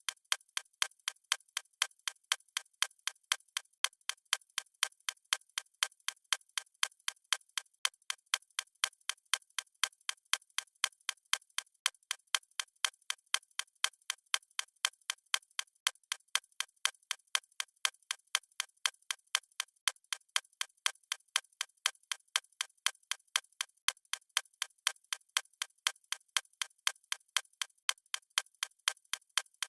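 Watch ticking steadily, several even ticks a second.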